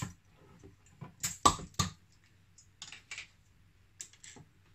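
Brown glass beer bottles being opened and handled: a series of short, sharp clicks and clinks from the caps and glass, the loudest cluster about a second and a half in and more near the end.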